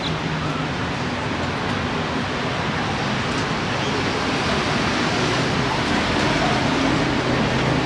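A steady wash of outdoor noise from distant surf and city traffic, with a faint low hum underneath. It grows a little louder toward the end.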